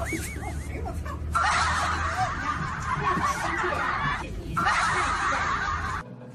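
Shrill, cackling laughter in two long bursts, after a brief warbling tone at the start; it cuts off abruptly about six seconds in.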